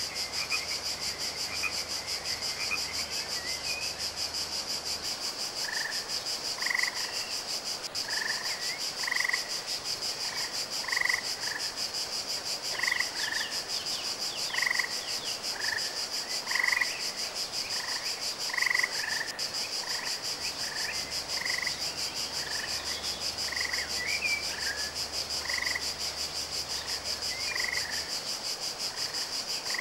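Green water frog croaking in short calls about once a second, with a steady, high, fast-pulsing insect trill underneath. The calls begin a few seconds in and stop shortly before the end.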